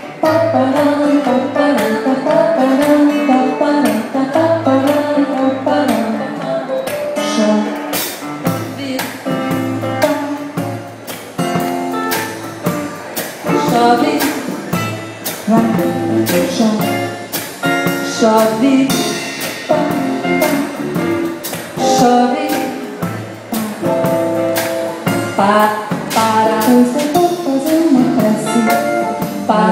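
Live music: a woman singing into a microphone with keyboard accompaniment and a repeating bass note.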